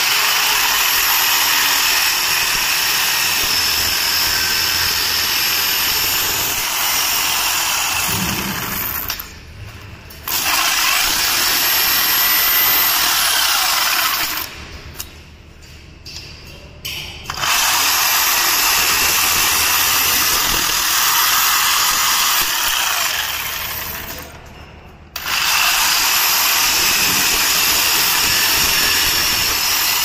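DeWalt jigsaw cutting through the galvanized sheet steel of a perforated cable tray along a marked line. The saw runs steadily, stops briefly three times, about nine, fifteen and twenty-four seconds in, and starts cutting again each time.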